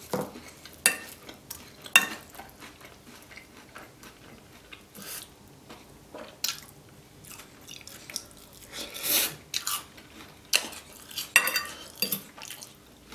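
Close-up eating sounds of creamy carbonara fettuccine: a metal fork clinks and scrapes on a ceramic plate several times, between wet chewing and a few slurps of noodles.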